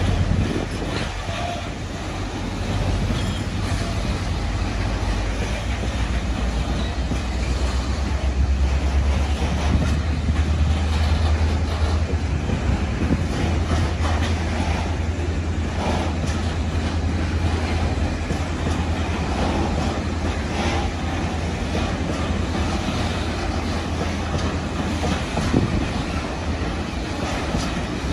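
Container flat wagons of a freight train rolling past close by: a steady, loud low rumble of wheels on rail with occasional clicks over the rail joints.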